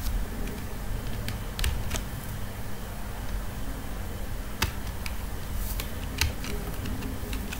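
Computer keyboard keystrokes: scattered single clicks at an irregular, unhurried pace as a word is typed, over a low steady hum.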